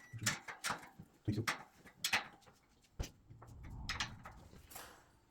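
A spanner working on a radiator valve union nut: a series of sharp metallic clicks and knocks, about eight, with short gaps between them.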